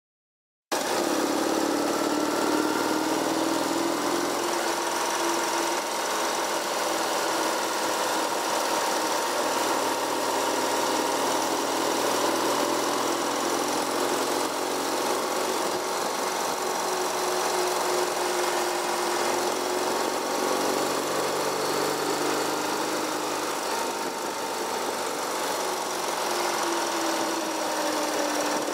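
Vehicle engine running steadily at road speed under a constant hiss, its pitch drifting gently up and down through the bends. It cuts in abruptly just under a second in.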